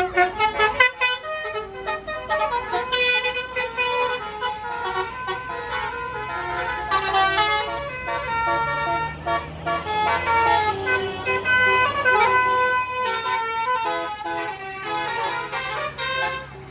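Tour bus's basuri telolet horn playing a quick melody, loud, note after note in rapid steps. A bus engine runs underneath from about halfway.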